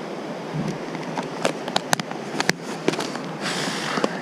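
A series of sharp, irregular plastic clicks and rattles from a clear compartmented fly box being handled, over the steady rush of a river.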